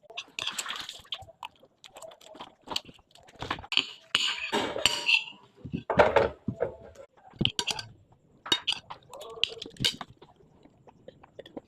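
Cutlery clinking against a plate, with eating noises from someone eating mie goreng fried noodles, in a stop-start run of short clinks and bursts.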